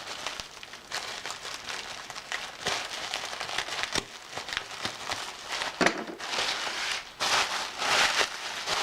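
Packaging crinkling and rustling as a parcel is unwrapped by hand, with small clicks and handling noises. It is louder near the end.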